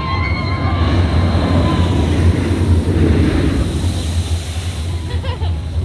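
SheiKra dive coaster train rumbling along its steel track and skimming through the splashdown pool, with a loud rush of water spray that swells through the middle and falls away.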